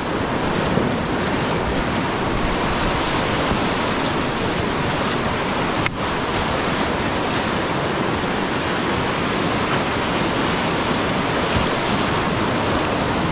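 Whitewater rapids rushing and churning steadily, heard close up from a canoe in the middle of the rapid.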